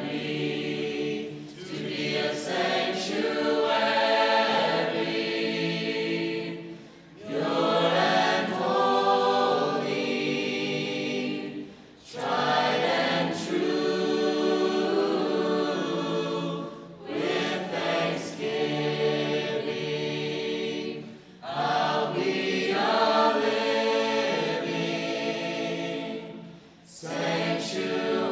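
Background music of a choir singing, in long phrases with a short break about every five seconds.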